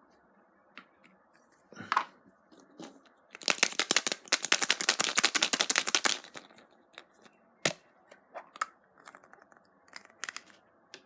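Foil wrapper of a chocolate surprise egg crinkling and tearing as it is peeled off by hand: scattered rustles and clicks, with a dense crackling for about three seconds in the middle.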